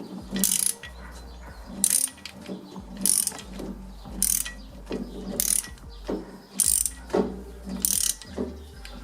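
Socket ratchet clicking in short bursts, about one stroke a second, seven in all, as the 32 mm pinion nut on a GM 7.5-inch 10-bolt rear axle is run down toward the crush sleeve.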